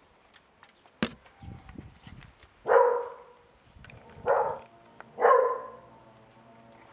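A dog barks three times, each bark short and pitched, near the middle. Before the barks there is a single sharp click about a second in, with some light handling noise.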